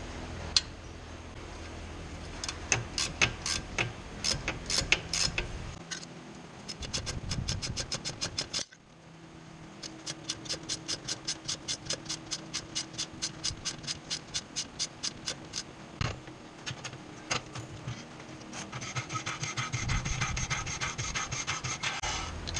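Ratchet wrench clicking as bolts are turned on the car's front suspension, in long runs of evenly spaced clicks, about four a second, broken off suddenly about nine seconds in.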